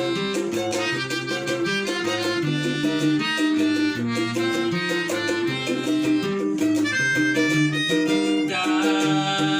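Instrumental break in a Javanese-language song: a melodic lead line over a repeating bass and a steady beat, with no singing.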